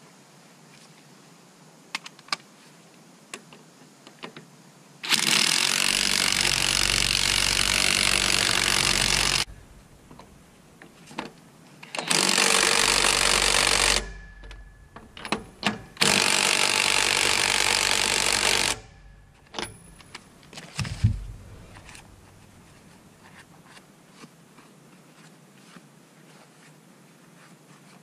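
Cordless impact wrench hammering lug nuts on a truck's dual rear wheel, in three bursts of a few seconds each. Short clicks and knocks of metal parts being handled come between the bursts, the loudest a sharp knock after the third burst.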